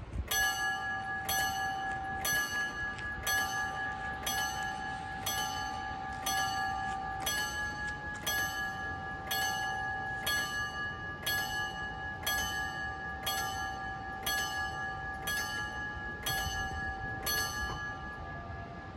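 Level-crossing warning bell ringing, about one stroke a second with a steady ringing tone between strokes, signalling that a train is approaching and the crossing is closing. It falls silent near the end.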